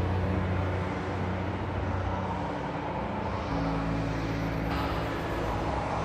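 Background music of sustained low drone chords, the chord changing about three and a half seconds in.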